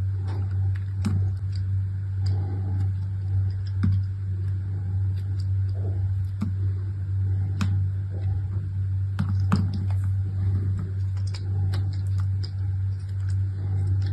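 Scattered light clicks and taps of hands unwrapping and handling packaged soap bars, over a steady low hum.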